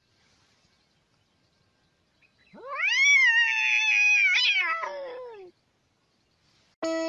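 A domestic cat giving one long meow that rises sharply, holds, then falls and trails off. Guitar music starts right at the end.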